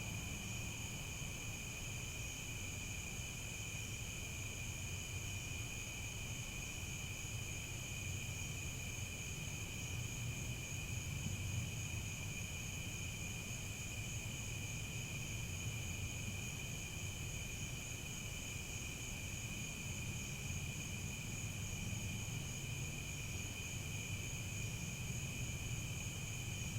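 Crickets chirping in a continuous, steady high-pitched chorus, over a low background rumble.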